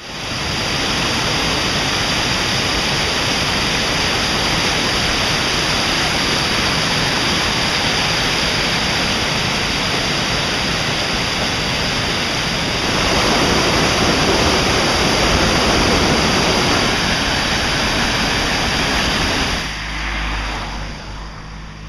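Muddy floodwater rushing and splashing over stones down a stone-lined garden channel, a loud steady rush that grows a little louder about halfway through. Near the end it gives way to a quieter, low steady hum.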